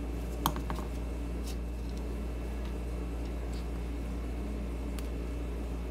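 Steady low hum of room noise with a few small metal clicks as a nut driver and a metal I.F. transformer shield can are handled; the sharpest click comes about half a second in.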